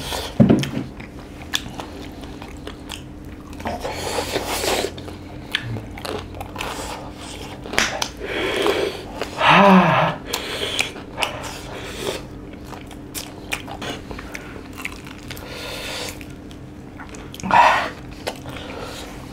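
Close-miked chewing and biting of crispy fried chicken and noodles: wet mouth clicks and small crunches. A pained, breathy vocal gasp from the spice heat comes about ten seconds in, and a short burst of voice comes near the end.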